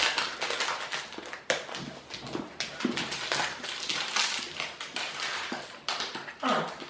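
Chewing and lip-smacking close to the microphone as a square of thin milk chocolate is eaten: a dense, irregular run of small wet mouth clicks and smacks.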